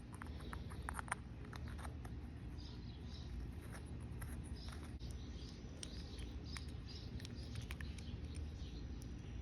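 Faint scattered clicks and light scraping, as of small parts and hand tools being handled, over a low steady hum.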